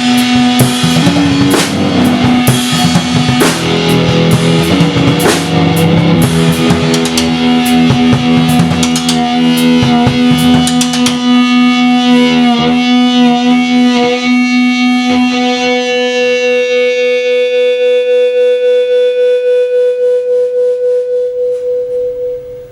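Guitar and drum kit playing the instrumental ending of a song: full drums under the guitar for about the first half, then the drums drop away and the guitar's chord and a held note ring out, fading near the end.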